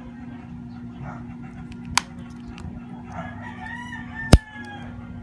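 A long, drawn-out animal call lasting about a second and a half, starting just past the middle, over a steady low hum. Two sharp clicks are also heard, one about two seconds in and a louder one near the end of the call.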